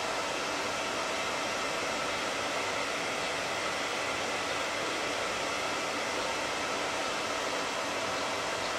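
Dyson tower air purifier fan running: a steady rush of air with a faint, even motor whine in it.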